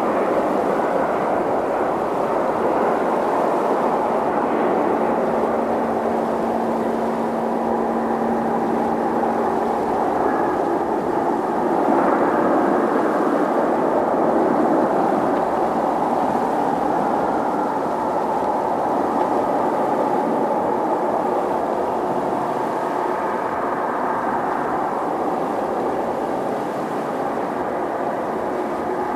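Jet engines of an Airbus A350-941, its Rolls-Royce Trent XWB turbofans, giving a loud, steady noise with a faint whine over it.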